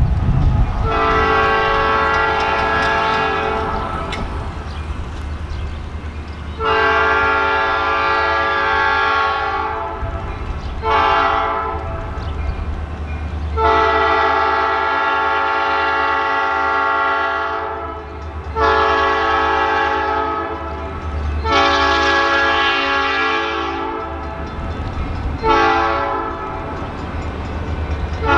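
Horn of an EMD GP40-2 diesel locomotive sounding the grade-crossing signal: two long blasts, a short one and a long one, then more long blasts, over the low rumble of the locomotive's engine.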